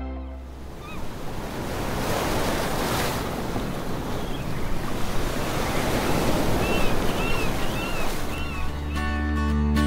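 Ocean surf washing and swelling with wind noise, with a run of short, arching high calls about two a second from the middle on. Music comes back in near the end.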